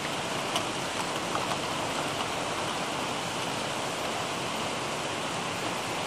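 Steady heavy rain: an even hiss of falling rain, with a few sharper drop ticks in the first second and a half.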